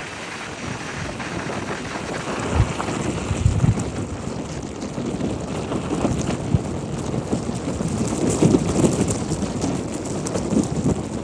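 Nissan Juke driving, with steady road and wind noise and a few dull knocks scattered through it. The owner takes the knocks for the brake calipers knocking under braking into turns once the car is warm.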